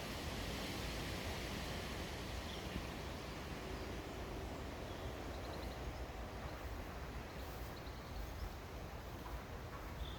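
Steady outdoor ambience of low rumble and hiss, with a few faint, short bird chirps scattered through it.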